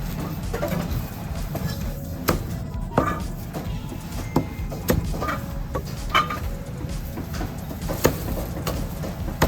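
Cleaver chopping roast meat on a wooden chopping block: sharp, separate chops, irregularly spaced and roughly one a second, starting about two seconds in, over a steady low background rumble.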